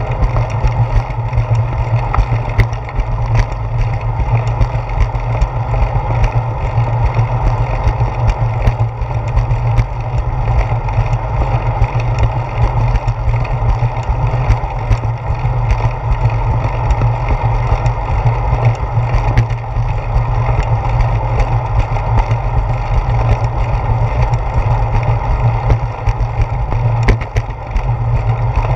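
Steady low rumble of wind and road vibration picked up by a handlebar-mounted GoPro as a bicycle rolls along a concrete sidewalk, with many small scattered clicks and rattles throughout.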